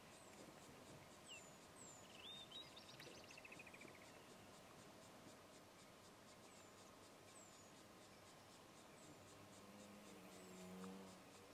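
Faint bushveld ambience: birds calling in short falling chirps, with a brief rising trill about two seconds in, over faint insect ticking. Near the end a low hum sounds for about a second and a half.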